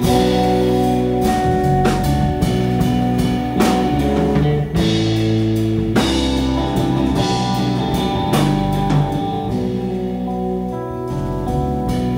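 Live instrumental blues-rock trio: electric guitar playing held notes over electric bass and a drum kit, with frequent drum and cymbal hits.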